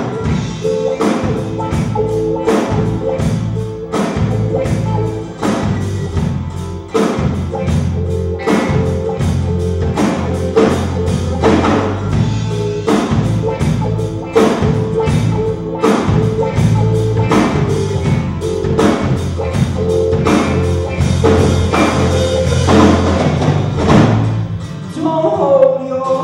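A band playing a song at a sound check, with a steady drum beat and a bass line. The drums and bass drop out about a second and a half before the end.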